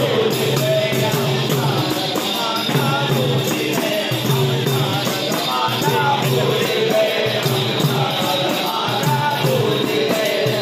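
Music: a voice singing a devotional-sounding melody over a steady percussion beat.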